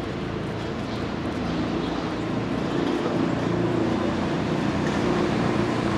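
City street traffic noise, with a steady low engine hum that grows gradually louder.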